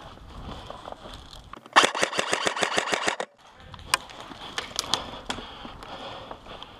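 Airsoft gun firing one full-auto burst of about a dozen and a half rapid shots, roughly ten a second, lasting about a second and a half. A few single sharp snaps follow a second or two later.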